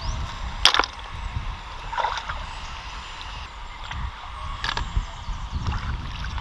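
Wading and sloshing in shallow muddy water while snails are picked out by hand, with four short sharp splashes, the loudest under a second in.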